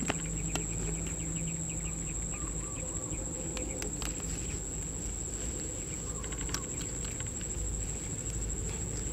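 Grassland ambience: a steady high-pitched insect drone, with a fast run of chirps during the first three seconds and a few short bird calls, over a low rumble.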